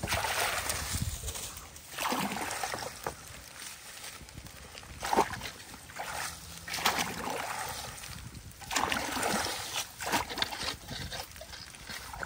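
Shallow muddy water splashing and sloshing as a long-handled tool is pushed and stirred through it, in irregular strokes every second or two, with one sharper splash about five seconds in.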